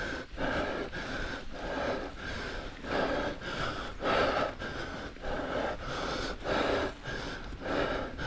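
Mountain biker breathing hard and fast, in and out at nearly two breaths a second: heavy exertion while pedalling up a very steep climb of around 28% gradient.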